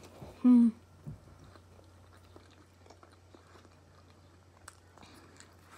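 A person chewing a mouthful of cheese pizza with the mouth closed, with faint soft clicks and ticks. About half a second in there is a brief, louder hummed 'mm' from the chewer's voice.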